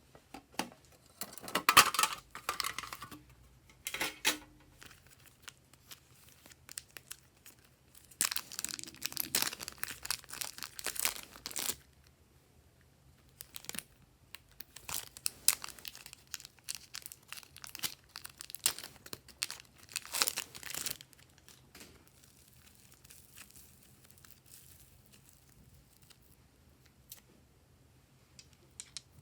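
Glossy slime being stretched, pulled apart and pressed by hands, making sticky crackling and tearing sounds in several bursts, quieter near the end.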